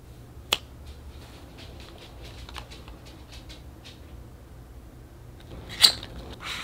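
Long fingernails tapping and clicking on a small cardboard box as it is handled and turned over. There is a sharp click about half a second in, light taps through the middle, and a louder click near the end.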